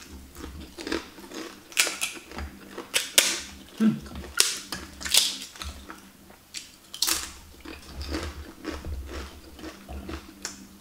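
Crisp crunching and crackling of a fried wonton being bitten and chewed close to the microphone, in irregular crunches.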